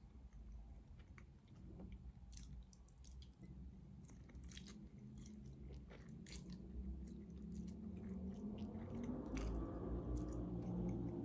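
Close-up mouth sounds of eating spaghetti bolognese: chewing with small wet clicks and smacks, and strands of spaghetti being sucked in. A low hum builds near the end.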